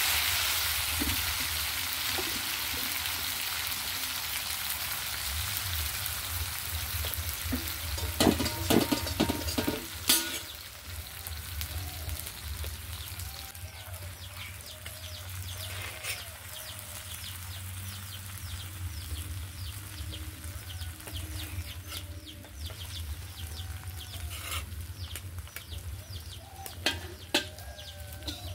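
Small fish sizzling in hot oil in an iron wok, loudest just after the fish go in, then easing to a steady frying hiss. A ladle knocks and scrapes against the pan a few times, in a cluster about eight to ten seconds in. Chickens cluck in the background in the second half.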